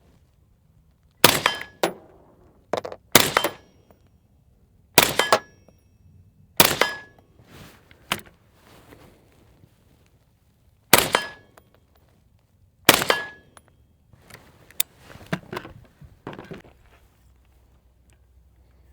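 AR-15 rifle firing single semi-automatic shots: about six loud reports, mostly about two seconds apart with a pause of about four seconds midway, with several fainter bangs in between.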